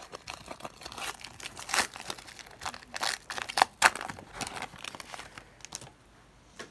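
Foil Pokémon card booster pack being torn open and crinkled by hand as the cards are pulled out: a dense run of crackles that stops near the end.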